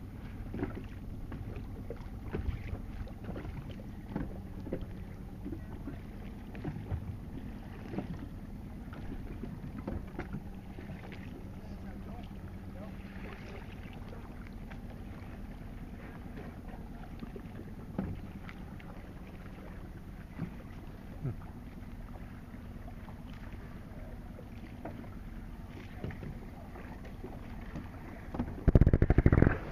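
Sea water lapping and slapping against the hull of a small boat, with wind on the microphone, scattered small knocks and a faint steady low hum underneath. Near the end comes a loud low buffet lasting about a second.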